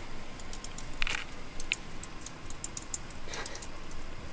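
Laptop keyboard keys clicking under typing fingers: quick, light, irregular clicks.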